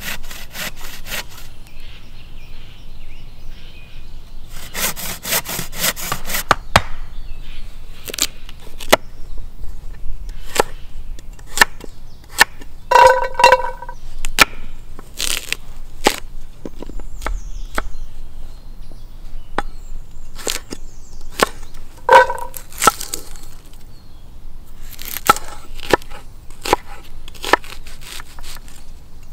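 Wood-cutting and food-prep sounds in sequence: a hand saw cutting through wood in quick strokes, then sharp knife knocks on a wooden cutting board. Twice, a short ringing clank from a cast-iron Dutch oven as vegetable pieces go in. Near the end, a knife chops through an onion on the board.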